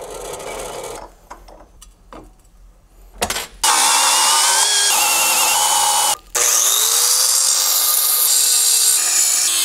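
Angle grinder cutting through metal, with a steady whine that wavers in pitch. It starts about three and a half seconds in, stops briefly around six seconds, then runs on. Before it there is quieter rubbing and a few clicks.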